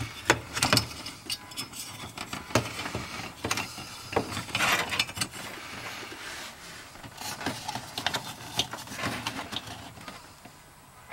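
Hands working among the wiring, relays and spade connectors under a car's dashboard: scattered clicks, light rattles and rustling.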